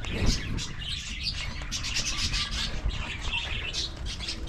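Many small birds chirping busily, quick overlapping tweets, over a steady low rumble.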